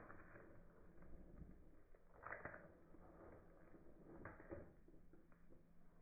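Near silence: room tone, with two faint short rustles about two and four seconds in.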